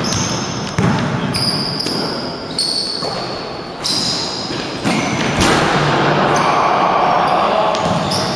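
Basketball being dribbled and bounced on a wooden gym floor, with short high sneaker squeaks, echoing in a large hall. From about five and a half seconds in the sound fills out with players' voices and movement.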